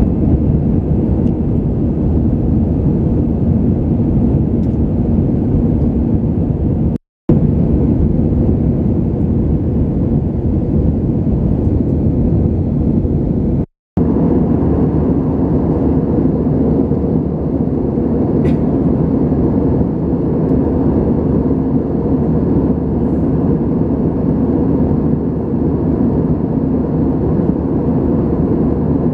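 Airliner cabin noise in flight: a steady, loud, low rumble of engines and airflow, broken twice by brief total dropouts near 7 and 14 seconds.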